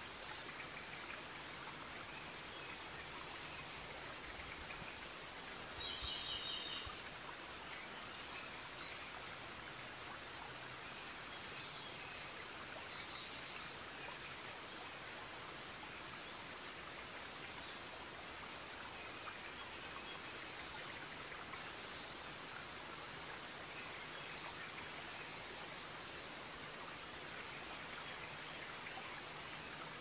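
Forest ambience: a steady watery hiss with birds calling over it, short high chirps and a few brief rapid trills every few seconds.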